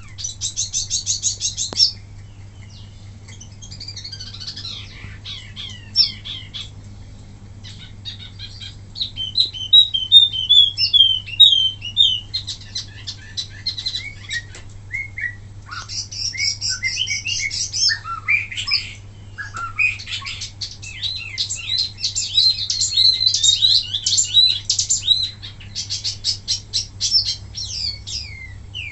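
Wambi mini songbird singing in rapid, high chirps, trills and short downslurred whistles, in bursts separated by brief pauses. These are the fast, sharp 'tembakan' phrases that bird keepers play as a master song to tutor caged birds.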